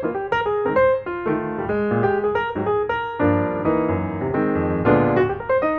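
Background piano music, quick successions of notes over fuller chords.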